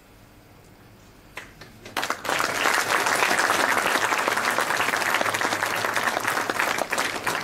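Audience applauding in a hall: a few scattered claps about one and a half seconds in, then full applause from about two seconds on.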